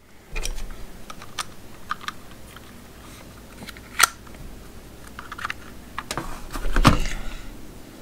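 Light, irregular clicks and taps of small hard plastic parts being handled: a Klein voltage tester's screwed battery door being worked with a small screwdriver. Two sharper clicks stand out, about four and seven seconds in.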